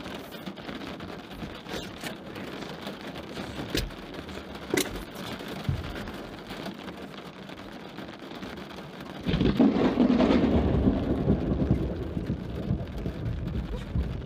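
Steady rain falling on window glass, with a few sharp drop ticks. About nine seconds in, a loud rumble of thunder starts suddenly and rolls on, slowly fading.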